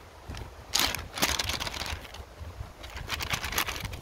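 Plastic and foil packaging crinkling and rustling in short bursts as an MRE entrée pouch is forced into its tight flameless ration heater sleeve.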